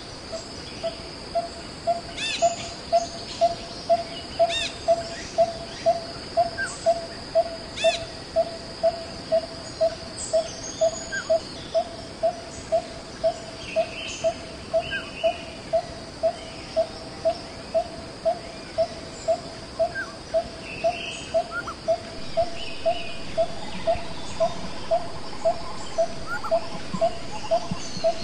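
Forest ambience: a bird repeats one short, even note about twice a second over a steady high insect drone, with scattered short chirps from other birds.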